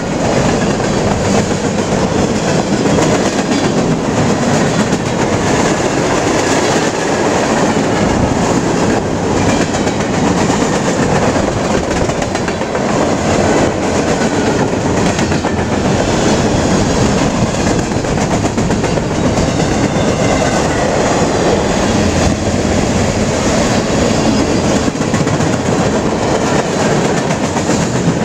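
Freight train cars rolling past, a loud steady rush with the wheels clacking over the rail joints.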